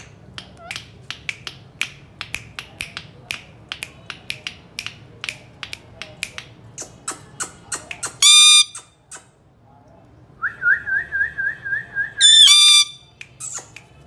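Indian ringneck parakeets: a run of sharp clicks, about three or four a second, then two loud harsh screeches about four seconds apart, with a warbling whistle leading into the second.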